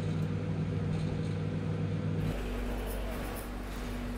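A Beko microwave oven running with a steady electrical hum. About two seconds in, the hum cuts off abruptly and a steady low rumble of street noise takes over.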